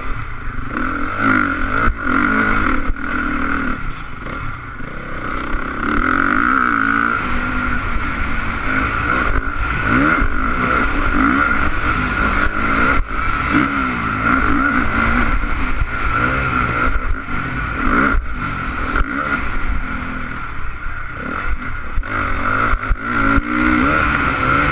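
Honda CRF450 motocross bike's single-cylinder four-stroke engine revving up and falling back again and again as it is ridden hard round the track, picked up by a helmet camera with wind rush. Sharp knocks and clatter keep cutting in.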